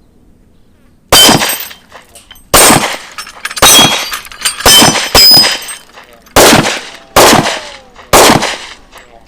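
Glock 20 semi-automatic pistol firing .40 S&W rounds through its 10mm barrel: eight single shots at an uneven pace, about one a second, starting about a second in.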